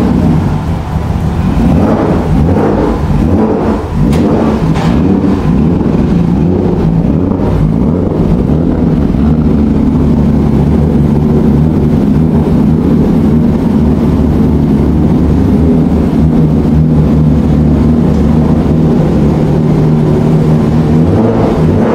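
Turbocharged 2.5-litre engine of a 1997 BMW E36 compact race car running at idle, with a few brief surges in the first five seconds and then a steady note.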